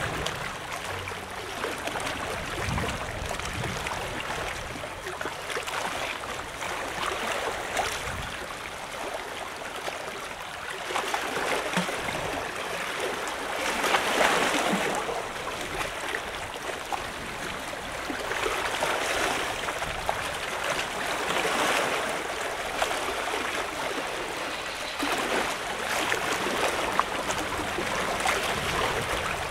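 Seawater lapping and sloshing against a concrete seawall, a steady wash that swells every few seconds, loudest about halfway through.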